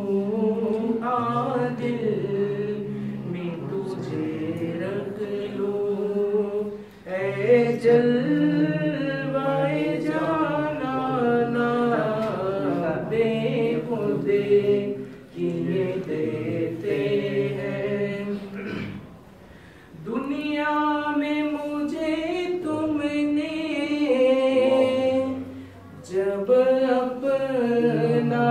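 A group of men singing a devotional chant together, unaccompanied, in long held phrases with short breaks between lines.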